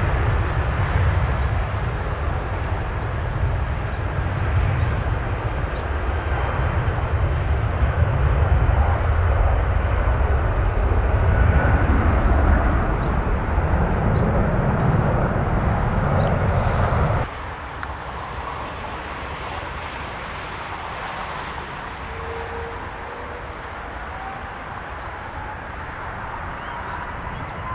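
Jet airliner engines passing close, a loud rumble with a whining tone. About seventeen seconds in the sound cuts off abruptly to a quieter, more distant jet rumble with a whine that slowly rises in pitch.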